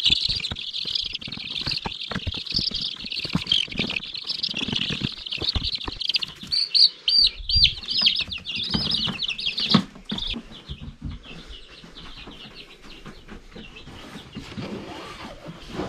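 A brooder of baby chicks peeping constantly, with a few loud, separate peeps about seven seconds in. The peeping fades after about ten seconds, and short knocks and rustling from the plastic tote and its pine shavings run underneath.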